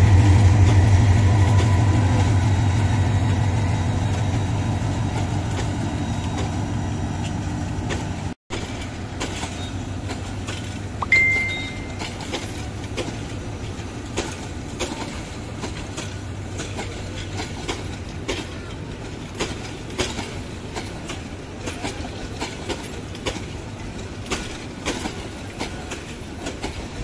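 Diesel locomotive passing with a deep engine hum that slowly fades. Then passenger coaches rolling by with a clickety-clack of wheels over rail joints. A short high tone sounds about eleven seconds in.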